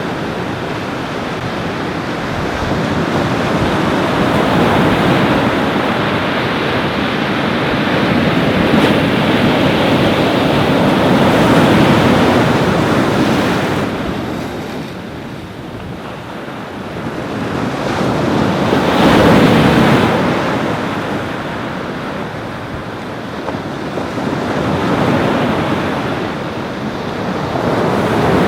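Ocean surf breaking and washing up a beach: a steady rush that swells and falls back every several seconds, with the biggest waves about a third and two-thirds of the way through.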